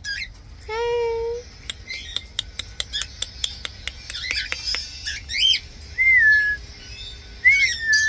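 Pet birds, a cockatiel and lovebirds, calling: a short call about a second in, a rapid run of sharp clicks, a burst of high chirps, then two clear whistles that dip in pitch near the end.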